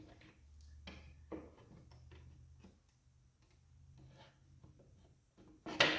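Scattered light clicks and knocks as the clamps and workpiece are adjusted by hand, over a faint low hum, with a sharper knock near the end.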